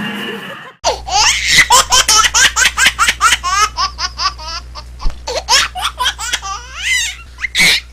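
A person laughing hard in quick, high-pitched repeated bursts, starting about a second in just after music cuts off and carrying on almost to the end.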